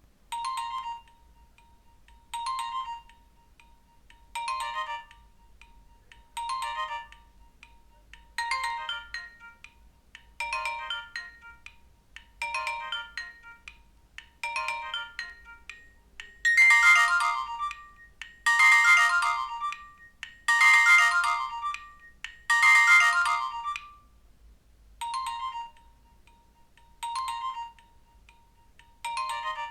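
Nokia 1616's built-in "Clock alert 2" alarm tone: a short electronic chime phrase repeating about every two seconds, with four louder, fuller repeats in the middle before it drops back to the softer phrase.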